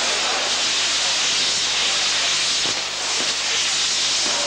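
Ground fireworks burning on spinning wheels: the fountain charges give a steady loud hiss, with a few faint cracks about halfway through.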